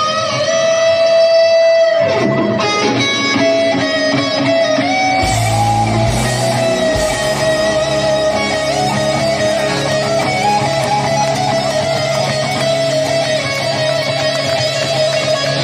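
Electric guitar solo played live through a concert PA: held, bending lead notes, with low bass notes joining about five seconds in.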